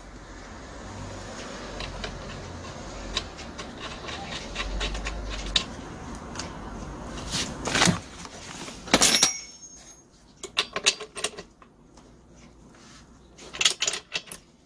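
Hands working on a butane gas brush cutter's engine. A steady breathy rushing noise runs through the first nine seconds, then come two louder knocks, then a string of small sharp clicks and taps.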